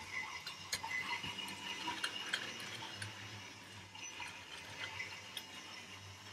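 Battery-powered toy trains running on plastic track: a steady small-motor whir with scattered sharp clicks as the wheels cross track joints and the crossing.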